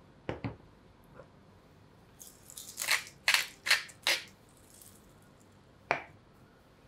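A pinch of salt crumbled between the fingers and sprinkled into the pan: about four short, crisp crunching rustles in quick succession. Two soft knocks come just before, and a single click follows near the end.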